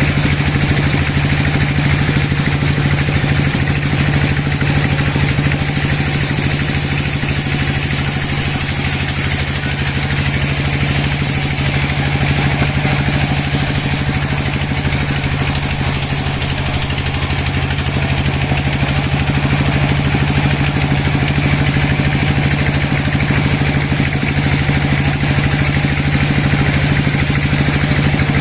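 Sawmill machinery running steadily: a constant engine-like hum with an even hiss over it.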